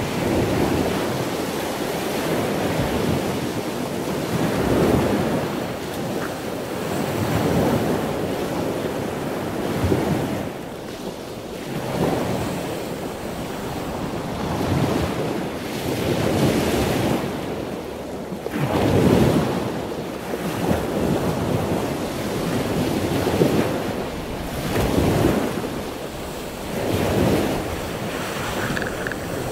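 Rough surf: waves breaking and foaming seawater washing in, swelling in surges every two to three seconds, with wind buffeting the microphone.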